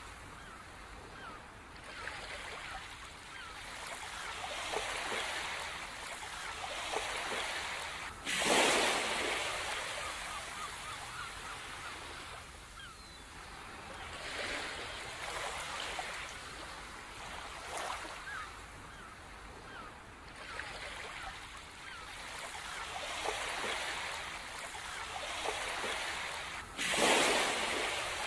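Ocean surf: waves washing in and drawing back in slow swells, with two louder breaking waves, one about a third of the way in and one near the end.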